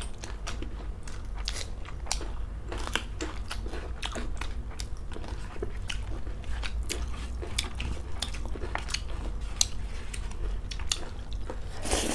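Close-up mukbang eating sounds: chewing and crunching mouthfuls of rice, curry and raw salad eaten by hand, with many short wet mouth clicks over a steady low hum. A louder cluster of crunches comes near the end.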